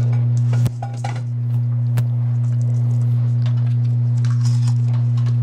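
Steady low electrical hum in the recording, a constant buzzing tone, with a few faint clicks and taps in the first two seconds.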